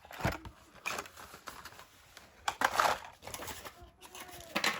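Packaging being handled: irregular rustling and crinkling in several bursts, the loudest about a quarter second in and again around two and a half to three seconds in.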